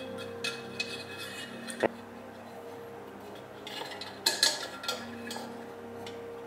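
Small metal clinks and scrapes from handling a brass oil lamp burner while a cloth wick is worked into its wick tube, with one sharp click about two seconds in and a cluster of clinks a little past the middle.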